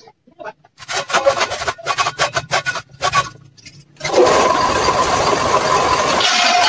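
Quick rubbing, scraping strokes on wood for a couple of seconds. Then, about four seconds in, an electric table saw starts suddenly and runs steadily with a whine.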